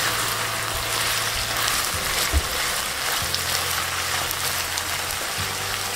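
Chicken pieces sizzling as they fry in oil in a pan: a steady frying hiss, with a faint low hum beneath.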